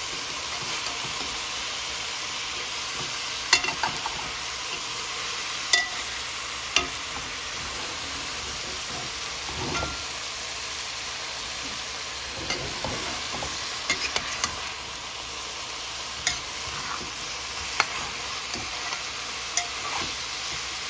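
Salmon and zucchini sizzling steadily in a metal pot, with a metal slotted spoon clicking and scraping against the pot now and then as the food is stirred.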